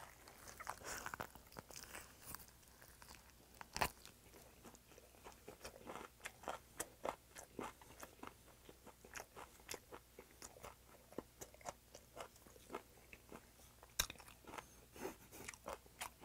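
A person chewing a mouthful of raw silver pomfret sashimi wrapped with romaine lettuce, onion and green chili: a steady run of small crunches and lip-smacking. There is a sharper crunch about four seconds in and another late on.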